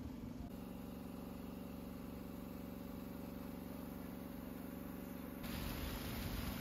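An engine running steadily at an even idle. About five seconds in, it gives way to the louder rush of churning, splashing water against a hull.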